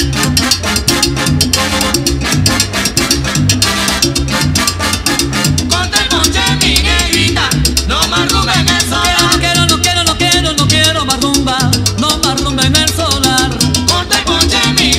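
Up-tempo salsa music with dense drums and percussion; a wavering melody line comes in about six seconds in.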